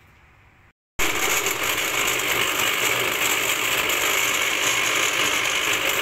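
Electric countertop blender running steadily at speed, blending a wet mix of onions, tomatoes, yogurt and spices into a gravy paste. It starts abruptly about a second in.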